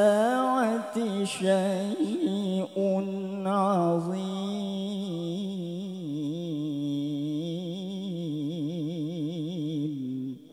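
A man's solo voice chanting Qur'an recitation in the melodic tilawah style through a microphone, drawing out a long ornamented note with a wavering vibrato. The pitch steps down about halfway, and the voice stops abruptly just before the end.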